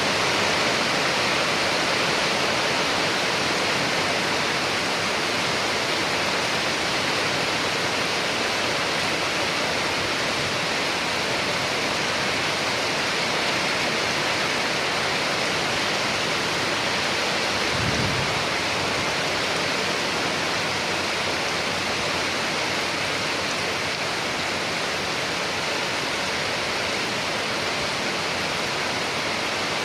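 Steady heavy rain falling, an even hiss without pause. About eighteen seconds in, one brief low thump sounds under the rain.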